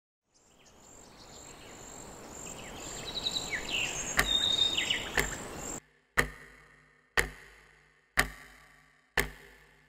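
Sound-designed film soundtrack: a swelling wash of noise with a high steady trill, short chirps and two sharp clicks, which cuts off abruptly about six seconds in. Then come deep hits once a second, four times, each ringing out briefly.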